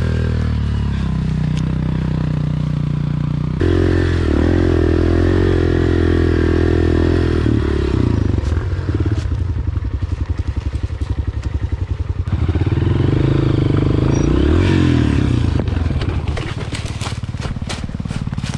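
Dirt bike engine running close to the microphone. It revs up about three and a half seconds in, then chugs along at low revs with an even putt-putt, revs up again, and drops back. A few sharp clicks come near the end.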